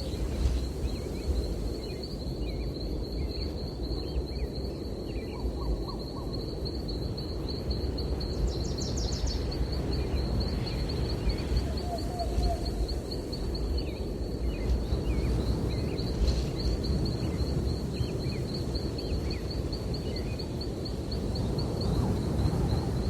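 Outdoor nature ambience: a steady breeze rustling through trees under a continuous high pulsing trill, with scattered short bird chirps throughout.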